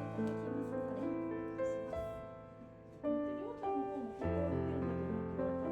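Background music: a gentle piano piece playing held notes and chords.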